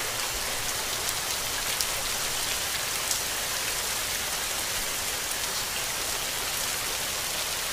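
Heavy rain falling steadily: a dense, even hiss with scattered small drop splashes.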